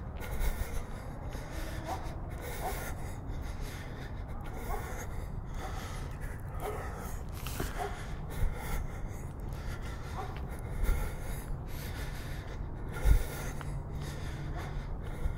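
Heavy breathing of the person carrying the camera, picked up close by the camera's built-in microphone, with a few low thumps, the sharpest near the end.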